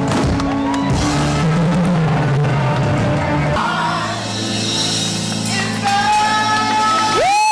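Live pop-rock band playing, with drums and bass up front, and a singer holding a long note near the end.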